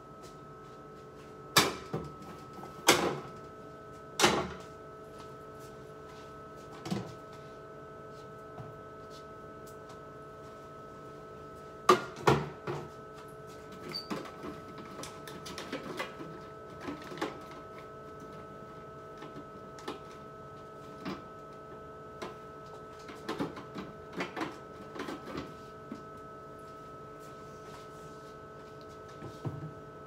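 Jars, bottles and plastic bins knocking and clattering as they are taken off a refrigerator's door shelves: a few loud knocks in the first few seconds, two more about twelve seconds in, then lighter clicks and clatter, over a steady hum.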